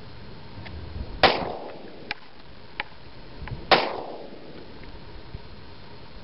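Two 10mm Auto pistol shots from a Glock 20 SF, about two and a half seconds apart. Each is a sharp crack with a short echo trailing off, and a few faint clicks fall between them.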